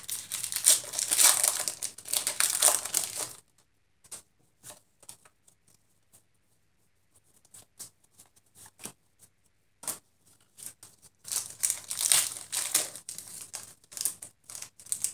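Foil wrapper of a Pokémon booster pack crinkling as it is torn open, for about three seconds. Then a quieter stretch of light clicks as the cards are handled, and the foil crinkles again from about eleven seconds in.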